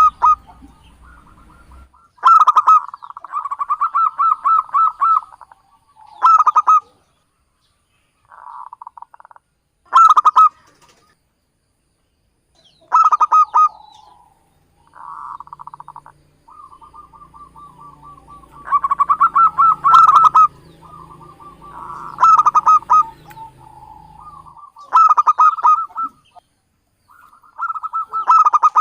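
Zebra doves (local Javanese perkutut) calling: repeated bursts of quick rolling coo notes, about a dozen phrases with short pauses between them, a lure recording for calling in wild perkutut.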